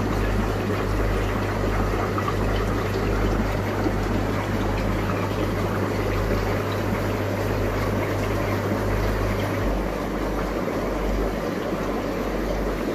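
Aquarium filters and water pumps running across rows of display tanks: a steady wash of moving water over a low electrical hum, which drops away about ten seconds in.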